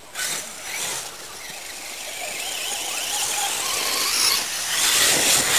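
Radio-controlled monster truck's motor and drivetrain whining at high pitch as it drives over dirt, the pitch wavering with the throttle and the sound growing louder toward the end.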